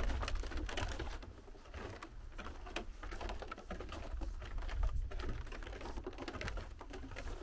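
Footsteps and trekking-pole tips knocking on a snow-dusted wooden boardwalk and steps, an irregular patter of light taps over a low rumble.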